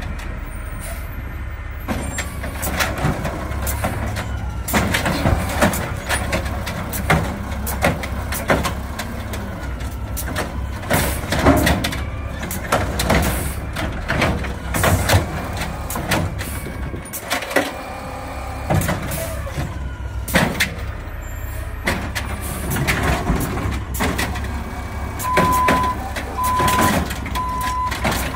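Natural-gas automated side-loader garbage truck idling while its hydraulic arm grabs, lifts and dumps a wheeled trash cart into the hopper, with repeated knocks and bangs of the cart and arm. Near the end a beeping alarm starts, about one beep every second or so.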